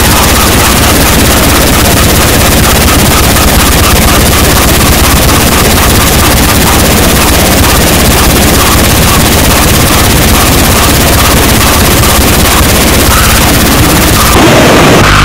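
Noisecore track: a loud, unbroken wall of distorted noise covering every pitch, with a faint fast pulsing in the middle. About a second before the end it cuts abruptly to a different noise layer carrying a steady high tone.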